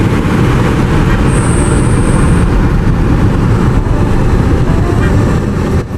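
Loud, steady vehicle rumble and road noise, with a brief thin high whine a little over a second in.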